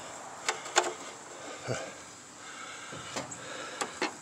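Faint handling noises around a rusted old engine: a few sharp clicks and light knocks, with a couple of soft scrapes, as its wiring and loose parts are moved by hand.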